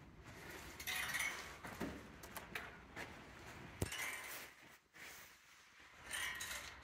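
Hands handling and turning a raw Shetland fleece: soft rustling of wool in several short spells, then a staple being pulled from it, with one sharp click a little before four seconds in.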